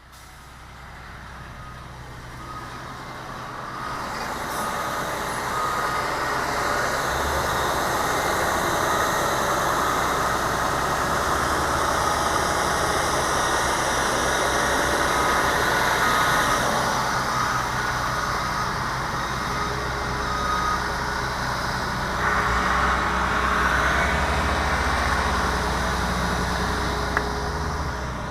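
1999 Amtran school bus diesel engine running with a steady low drone, fading in over the first few seconds.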